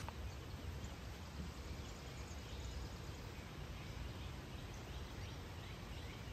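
Outdoor ambience: a steady low rumble with faint bird chirps.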